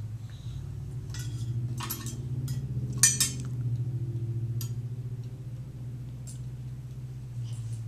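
Chihuahua growling low and steadily without a break, a warning growl at another dog that is pestering her while she tries to sleep. Several sharp clinks cut in between about one and five seconds in, the loudest about three seconds in.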